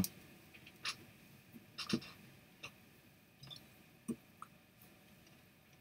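A quiet pause broken by about half a dozen faint, short clicks at irregular moments, the loudest a close pair about two seconds in.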